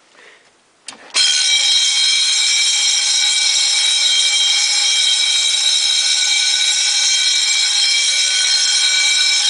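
Two electric Wheelock fire alarm bells, a 6-inch and a 10-inch, ringing together continuously, starting suddenly about a second in just after a click.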